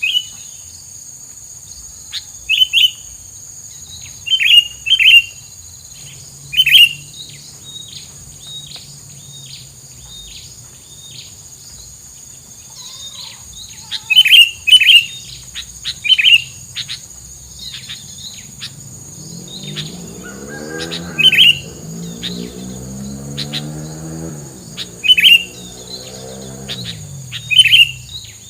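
A tilang songbird giving short, sharp chirps, singly or in quick pairs, every second or two, over a steady high insect whine. From about two-thirds of the way in, an engine passes by for several seconds, its pitch rising and then falling.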